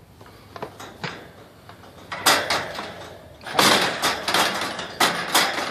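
Scraping and rustling with sharp knocks against a wooden box, in two loud spells: one about two seconds in, a longer one from halfway on.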